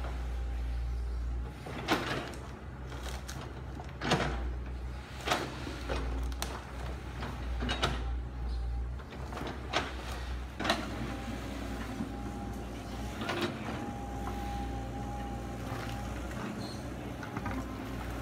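Kobelco crawler excavator working through bamboo and brush: the diesel engine runs with a steady low drone, and sharp cracks and knocks come every second or two in the first half, then a steady whine as the machine keeps working.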